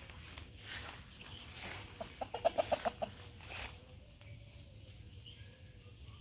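Chicken clucking in a quick run of about eight short clucks, a couple of seconds in.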